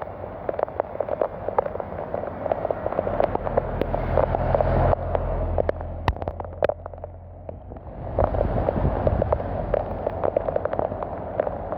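Heavy rain pattering close to the microphone, a dense spray of drop hits, with wind rumbling on the microphone. The rain noise drops back for a few seconds around the middle, then returns.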